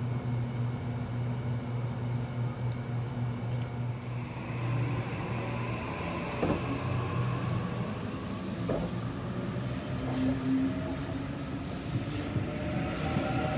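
Series 2 Waratah electric passenger train standing with a steady low hum, then pulling away along the platform: from a few seconds in, several whines from its traction equipment rise in pitch as it gathers speed, over the sound of the cars rolling past.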